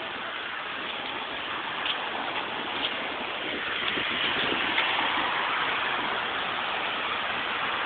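Steady rush of highway traffic from the road below, growing louder about halfway through.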